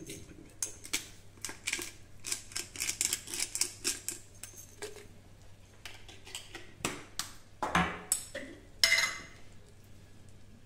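Kitchen clatter of a wooden spoon and utensils knocking and scraping against a frying pan: a quick run of clicks and knocks, with a few louder knocks near the end.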